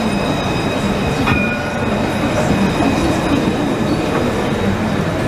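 Alstom Citadis tram passing close by at low speed: a steady rumble of wheels on rail with thin, steady high-pitched tones over it, and one short click about a second in.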